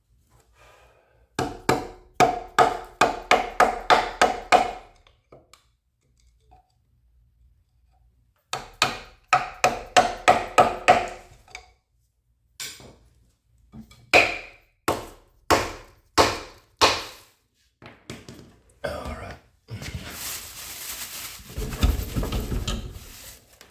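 Hammer blows on metal, in two fast runs of about three strikes a second, each blow ringing with a metallic note. Then come several slower single blows, and a longer scraping rattle near the end.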